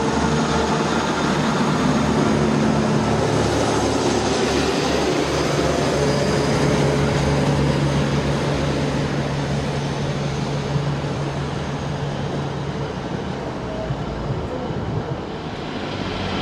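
Class 175 diesel multiple unit moving along the platform, its diesel engine running with a steady low hum over wheel and rail rumble. The engine hum dies away about thirteen seconds in.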